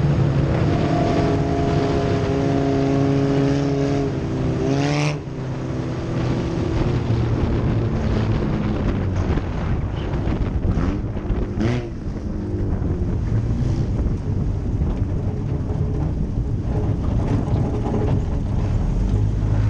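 Pontiac Sunfire hornet-class dirt race car's four-cylinder engine heard from inside the car while racing, its pitch rising and falling with the throttle and dropping sharply about five seconds in, with wind rushing over the microphone.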